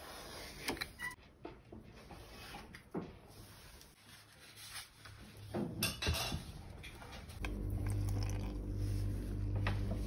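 Leather and tools being handled on a workbench: scattered light knocks, taps and rubs as the template, leather and a dye bottle are moved, loudest about six seconds in. From about seven seconds a steady low hum sets in.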